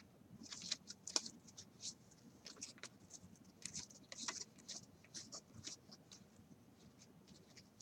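Faint, irregular swishes and small clicks of a stack of 2016 Panini Prestige football cards being slid and flipped one at a time in the hands.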